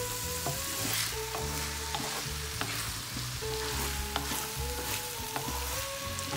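Soaked basmati rice and vegetables sizzling as they are sautéed in a pan, a spatula stirring through them with scattered light scrapes and ticks against the pan.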